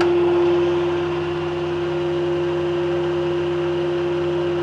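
Blanchard Model 11-16 rotary surface grinder running: a steady electric machine hum with a strong constant tone, easing slightly in level about a second in.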